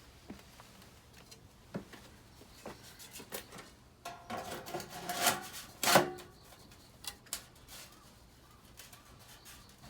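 Scattered knocks, taps and scraping from hand work on the incinerator's metal parts, with a louder clattering run and a ringing clank about four to six seconds in.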